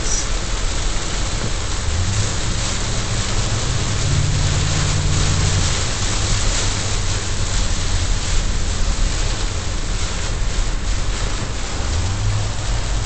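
Heavy rain pelting a car's windshield and roof, heard from inside the moving car, as a steady loud hiss. A low hum of the car's engine and tyres runs underneath it.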